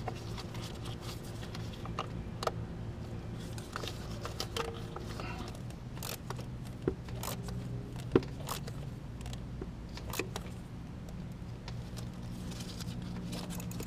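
Scattered light metallic clicks and scrapes of a wrench tightening the nut on a car starter's terminal stud, over a steady low hum.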